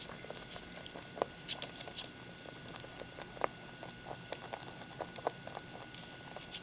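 Three house rabbits eating dry food from a ceramic bowl: a quick, irregular patter of small crunches and clicks as they chew.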